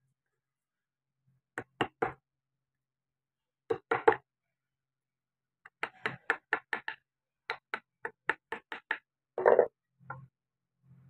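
Wood-carving chisel working into wood, making sharp taps in small groups. There are three taps about two seconds in and a few more near four seconds. Then comes a quick run of about a dozen, roughly three a second, and a longer, louder stroke near the end.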